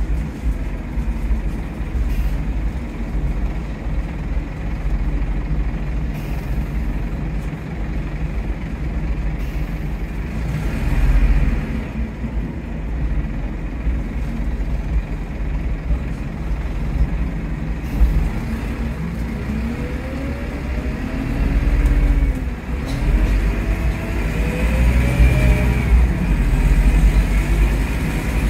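Inside a moving Scania K230UB OmniLink bus: its five-cylinder diesel engine and the road give a steady low rumble. In the last third come several rising whines as the ZF Ecomat automatic gearbox pulls it up through the gears.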